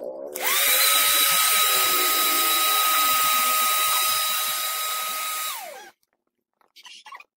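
Small electric air pump for inflatables switched on: its motor whine rises quickly to a steady pitch with a rush of blown air, runs for about five seconds, then is switched off and winds down with falling pitch.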